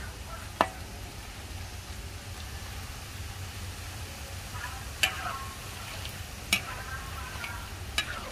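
Thin banana slices deep-frying in hot oil in a large steel wok, a steady sizzle, while a metal skimmer stirs them and clinks sharply against the wok four times.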